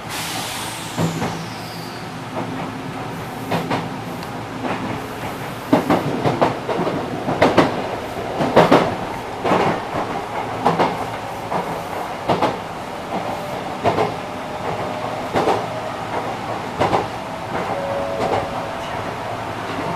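Enshu Railway electric train set 2007F running along the elevated line, heard from inside the front car: a steady rumble of the train under way, with sharp clacks of the wheels over rail joints about every second and a half, loudest in the middle stretch.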